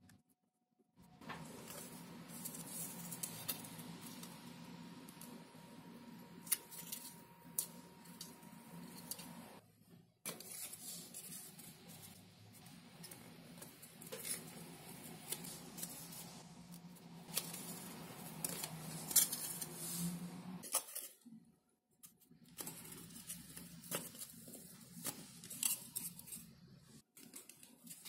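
Fingers handling and pressing pieces of XPS foam board together, the foam rubbing and scraping with many small clicks, as glued tail parts are fitted and held at their joints. It comes in stretches broken twice by short silences.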